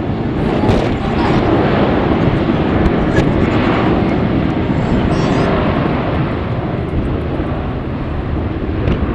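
Jet airliner's engines, a loud steady rushing roar as the aircraft passes near the runway, strongest in the first few seconds.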